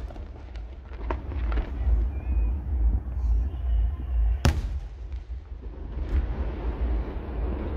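Aerial fireworks display: a deep, steady rumble of exploding shells, with a few sharp cracks about a second in and one loud bang about four and a half seconds in.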